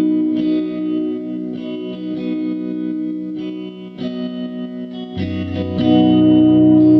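Background music: a guitar played through effects such as chorus, holding sustained chords, with a deeper bass part coming in about five seconds in and the music growing louder.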